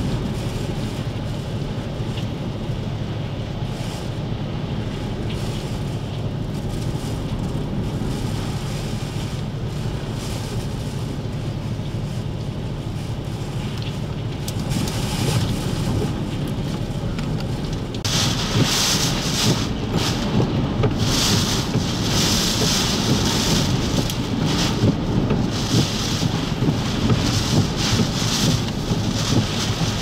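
Hurricane-force wind with driving rain, a steady dense rush at first. About 18 seconds in it turns harsher and hissier, coming in strong gusts.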